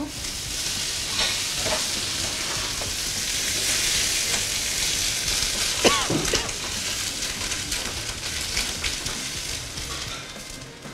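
White wine poured from a squeeze bottle into a hot skillet of sautéed garlic, chile and mushrooms, sizzling hard as it deglazes the pan. The sizzle swells through the middle and dies down near the end, with one short squeak about six seconds in.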